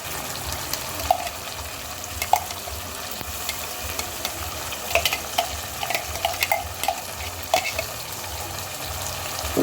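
A pot of frying potatoes and onions with freshly added blended tomatoes being stirred: a steady sizzle, with a spoon clinking sharply against the pot about a dozen times, most often between about five and eight seconds in.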